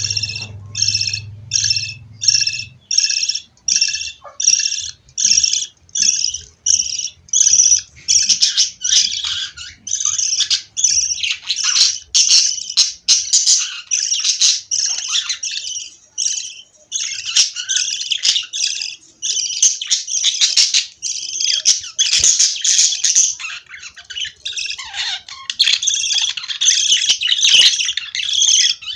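Budgerigars chattering and squawking. A run of short, evenly spaced calls at about two a second opens the sound, and after about eight seconds it turns into a dense, overlapping chatter of many calls.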